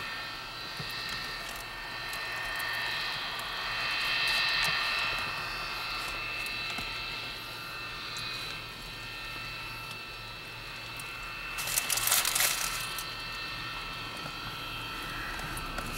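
Jet engine of a railroad snowblower running steadily: a high turbine whine over a continuous jet rush, swelling a little around four seconds in. A brief louder rush comes about twelve seconds in.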